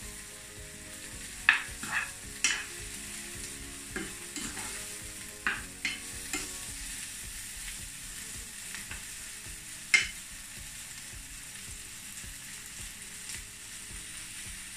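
Sliced yellow squash and onions sizzling steadily as they fry in butter and grapeseed oil in a skillet, with a spoon stirring them and knocking against the pan now and then, loudest about a second and a half in and again at about ten seconds.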